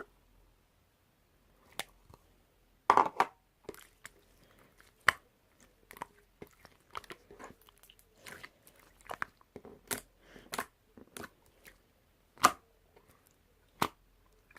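Slime being squished, stretched and pressed by hand, giving irregular sticky clicks and pops with a few louder snaps.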